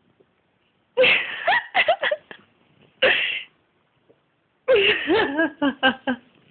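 Cat hiccuping: runs of short, quick pitched sounds. There are about five in a row a second in, a single one near the middle, and another run of about six near the end.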